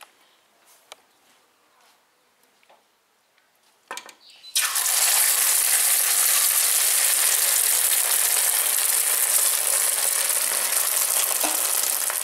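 A few faint knocks, then beaten eggs poured into hot oil in an aluminium frying pan: a loud, steady sizzle begins suddenly about four and a half seconds in and keeps going.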